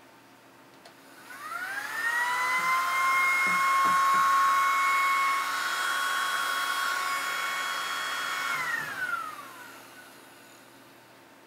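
Novelty mini vacuum cleaner shaped like a fire extinguisher, switched on: its small motor whines up to speed about a second in, runs steadily with an airy hiss for about seven seconds, then is switched off and winds down.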